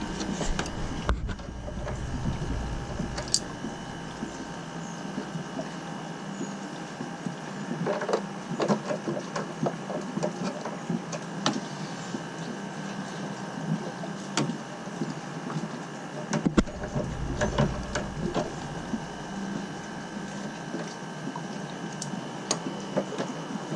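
Copper supply pipe being cut in place with a small tubing cutter, giving irregular clicks and scraping, over a faint steady hum.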